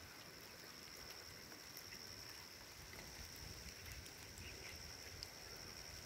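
Faint, quiet countryside with a steady high-pitched insect drone.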